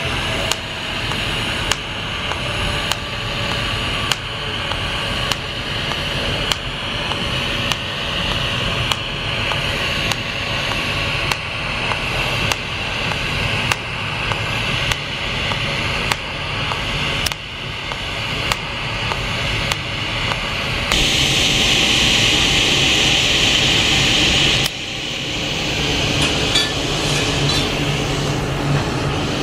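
TIG welding arc hissing and buzzing while the Fronius Dynamic Wire system feeds the filler wire automatically. It has a regular click and swell about once a second. About two-thirds of the way through, a louder steady hiss runs for a few seconds and cuts off suddenly, leaving a lower hum.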